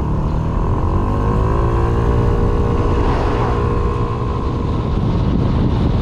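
Yamaha Smax 155 scooter's single-cylinder engine pulling away: its note rises over the first couple of seconds, then holds steady as the bike gets up to speed, with wind rushing over the microphone.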